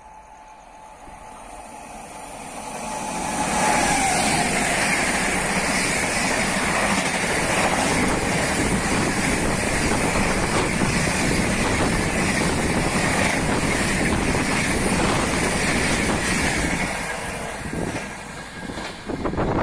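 A WAP-7-hauled LHB express train passing at speed, about 130 km/h. The rushing noise builds over the first few seconds, stays loud and steady while the coaches go by, and falls away near the end.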